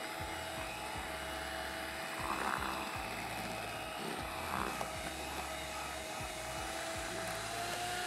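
Electric hand mixer running steadily, its beaters whipping a thick whipped-cream and cream-cheese cheesecake filling in a plastic tub. Its motor gives a steady whine that rises slightly in pitch near the end.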